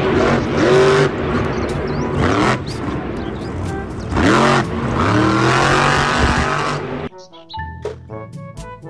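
Monster truck's supercharged V8 engine revving hard, its pitch rising and falling repeatedly as it drives over an arena dirt course. About seven seconds in it cuts off and light background music takes over.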